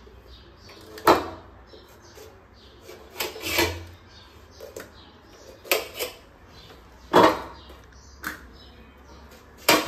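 Knife cutting a large tavsa cucumber in a wide steel plate: about seven sharp, irregular knocks and clatters as the blade and cucumber pieces strike the metal.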